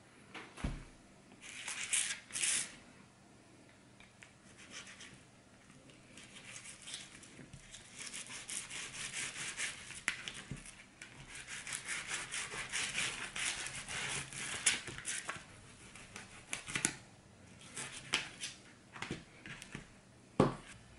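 Fillet knife cutting and scraping through a croaker fillet on a plastic cutting board, flaying the meat off the skin: short rasping strokes, busiest in the middle, with a few light knocks of the knife on the board.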